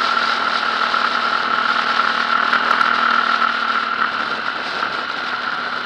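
Motorcycle ridden at steady road speed: engine running evenly under a constant rush of wind noise, heard from a camera mounted on the moving bike.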